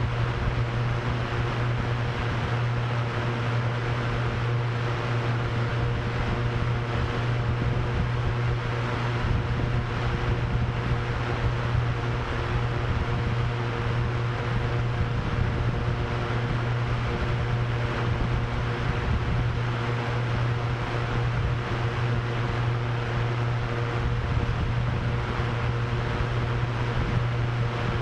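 Steady hum of drone propellers holding a constant pitch, over blowing wind that rises and falls in uneven gusts.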